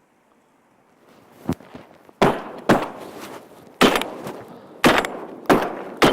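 A rapid volley of shotgun blasts, about six sharp shots in four seconds, each with a short echoing tail, from hunters firing at incoming eider ducks.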